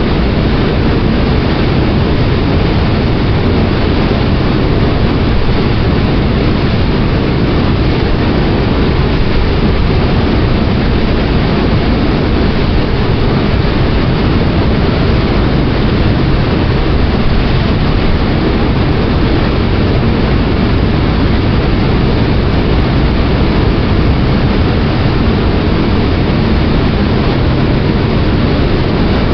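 Ferry under way: the steady low drone of its engines mixed with the rush of water and wind, unbroken and even in level.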